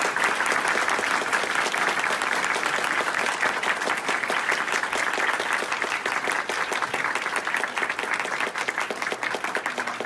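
Audience applauding: many hands clapping densely and steadily, easing slightly near the end.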